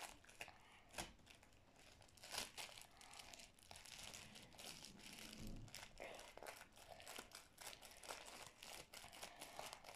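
Faint, irregular crinkling of a plastic crisp bag being handled and folded.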